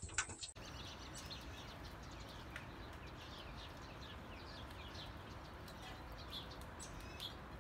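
Small birds chirping over a steady outdoor hiss: many short, quick chirps that drop in pitch, scattered irregularly through the sound.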